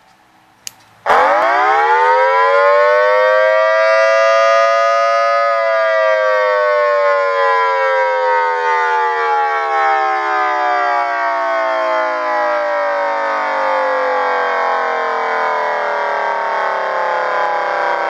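Homemade electronic siren sounding a wail: after a click, a two-tone chord a minor third apart starts about a second in and rises quickly in pitch. About five seconds in it turns and falls slowly and steadily.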